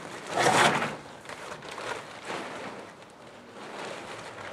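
A large white tent sheet rustling as it is hauled out of a storage box and shaken open. The loudest rustle comes about half a second in, followed by quieter, uneven rustling.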